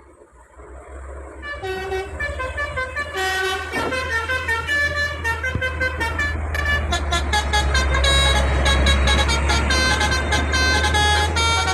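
A bus's multi-tone 'telolet' musical horn playing a quick run of changing notes over the low rumble of its engine, getting louder over the first few seconds as the bus approaches.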